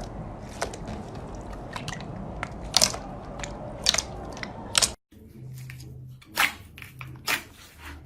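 Slime being squeezed and pressed by hand, making sharp crackling clicks and pops. About five seconds in, the sound cuts to another clip, where a few louder squishy pops come about a second apart over a low hum.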